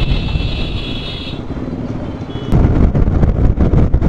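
Motorcycle engine and road noise in city traffic, with a high, steady electronic warning tone from a nearby vehicle for about the first second and a half and again briefly just after two seconds. About two and a half seconds in the sound jumps louder, with engine and wind noise at riding speed.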